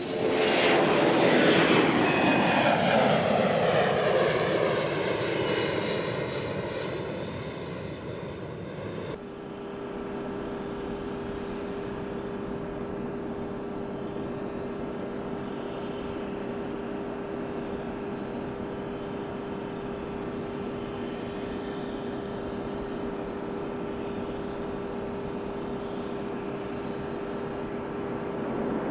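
Four-engine Boeing KC-135R Stratotanker's CFM56 turbofans at takeoff power as it climbs past close by, the sound falling steadily in pitch as it goes. About nine seconds in it changes to a steadier, quieter jet whine with a constant tone from a KC-135 on final approach, growing a little louder near the end.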